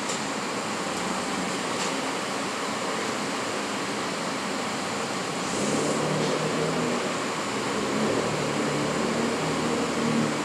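Steady hum and whir of a standing New York City subway train's air-conditioning and onboard equipment. A deeper drone joins about halfway through.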